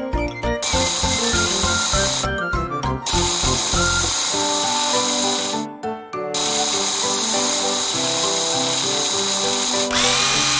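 A power-drill whirring sound effect in three long runs, broken by short pauses about two and six seconds in, over background music.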